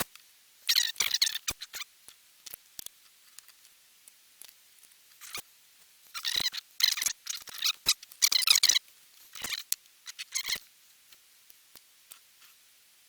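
Small hobby tools working hard plastic model-kit parts: short scratchy rasps in irregular bunches, with a few sharp clicks, and quiet gaps between.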